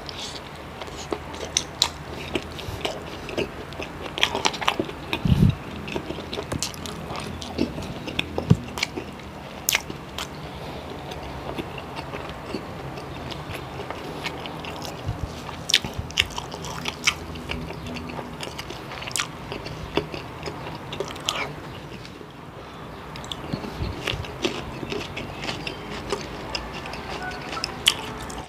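Close-up eating sounds: biting and wet, smacking chewing of adobo chicken innards and rice, with many sharp mouth clicks and smacks.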